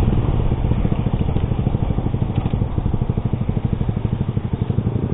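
Yamaha R15 V3's single-cylinder engine idling steadily through an SC Project exhaust with a dB killer fitted, an even, rapid pulsing.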